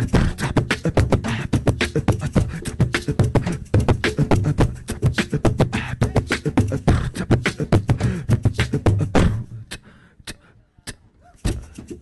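Fast hand percussion played on the body of a Hyundai ix35, picked up by a microphone: a dense rhythm of slaps and low thumps. It breaks off about nine seconds in, leaves a few scattered hits, and starts again just before the end.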